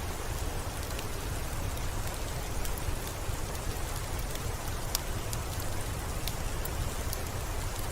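Rain-and-fireplace ambience: a steady hiss of rain with a low rumble beneath it and scattered faint, sharp crackles.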